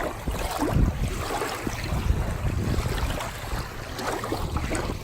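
Gusty wind blowing on the microphone: a low, uneven rushing noise that swells and eases.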